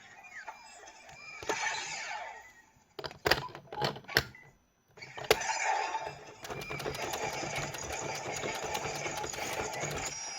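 Geartlinger toy transformation gun playing its electronic gear-reading sound effects: sweeping electronic tones, then a few sharp clicks between three and four seconds in. From about five seconds in comes a steady whirring effect laced with rapid clicking.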